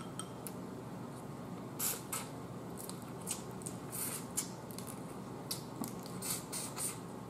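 Mouth sounds of eating boiled crab: sucking and smacking on a crab leg to draw the meat out, heard as irregular soft clicks and crackles, about a dozen in all.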